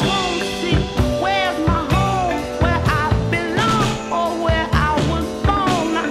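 A rock song playing, with a sung vocal line over bass and a drum kit keeping a steady beat.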